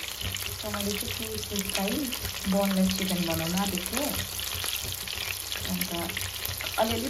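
Breaded chicken pieces shallow-frying in hot oil in a pan, with a steady sizzle and crackle. A voice is heard on and off over it.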